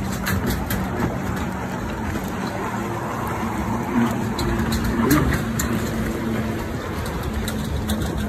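Steady rushing noise of water and wind over a low, even engine hum from a watercraft.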